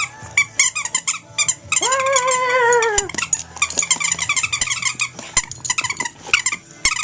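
Electronic children's toy giving a laugh: rapid, high, squeaky chirps several times a second, with one longer tone about two seconds in that slides slowly down.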